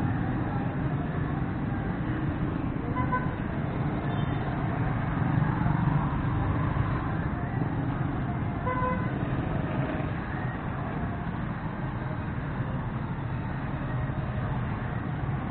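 Street traffic: a steady rumble of motor vehicles running, with a short horn toot about three seconds in and another near nine seconds.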